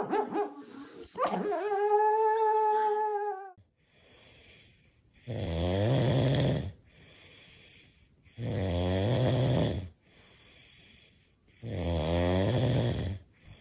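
A dog snoring loudly: three long rasping snores about three seconds apart. Before them comes a long, high note that wavers and then holds steady.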